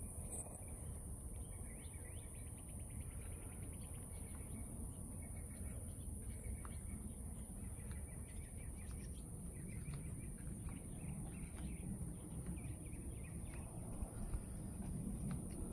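Outdoor ambience: birds chirping in short repeated bursts over a steady low rumbling background noise and a thin, steady high-pitched whine.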